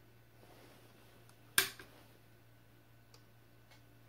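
A single sharp metallic click from the AR-15's trigger and hammer mechanism about one and a half seconds in, with a faint second click just after it. The mechanism is being worked while its trigger pull weight is measured with a gauge.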